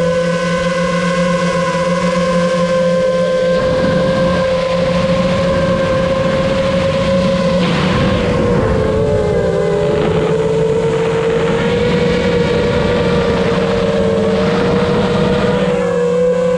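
Brushless motors and 7-inch propellers of a long-range FPV quadcopter, heard from its onboard camera: a steady high whine that dips a little in pitch about halfway through and slowly climbs back as the throttle changes.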